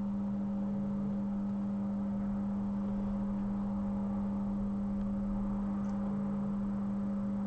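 Steady electrical hum: a constant low tone with fainter overtones, unchanging throughout.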